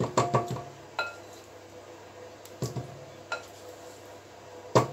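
Spatula knocking and scraping against a glass bowl while cold cream cheese is scraped out. There are sharp clinks at the start, one about a second in with a brief glassy ring, a couple more midway, and a quick run of clinks near the end.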